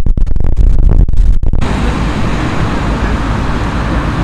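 Wind buffeting the microphone in a heavy, gusting low rumble. About a second and a half in, it cuts abruptly to a steady, even rush of wind and outdoor noise.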